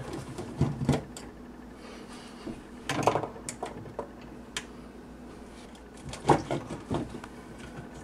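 Scattered clicks and light knocks of a hand tool and small screws against the hard plastic of a dishwasher sump, a few at a time with quiet gaps between.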